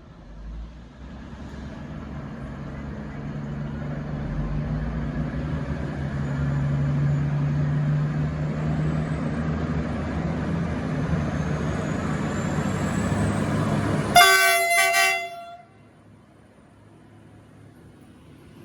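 V/Line VLocity diesel multiple unit pulling away from the platform, its diesel engines growing louder as it gathers speed past the platform. About fourteen seconds in it sounds a short, loud horn blast, and then the noise drops away abruptly.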